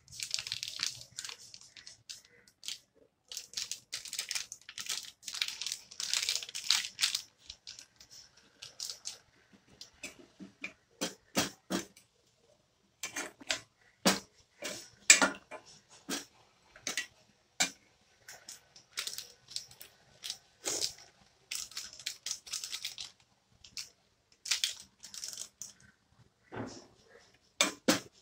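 A plastic packet of chilli powder crinkling and being shaken for the first several seconds, then a steel ladle stirring a curry in a steel pot, knocking and scraping against the pot with many short sharp clinks.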